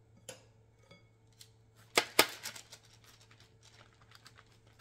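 Light clicks and taps of kitchen utensils being handled at a counter, with two sharper clicks about two seconds in, over a faint steady hum.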